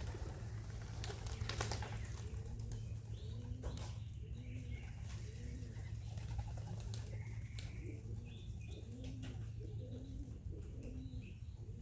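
Young pigeons cooing over and over in short arched calls, with a few brief bursts of wing flapping and clapping as birds take off.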